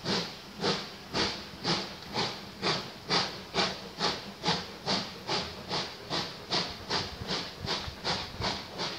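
Steam locomotive exhaust chuffing as the train pulls away, sharp hissing beats at about two a second that gradually quicken as it gathers speed.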